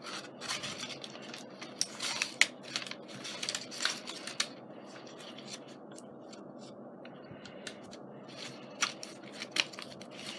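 Sticker sheets and craft packets being handled and sorted: paper and plastic rustling with sharp clicks and taps, busy for the first few seconds, then quieter with a couple of clicks near the end.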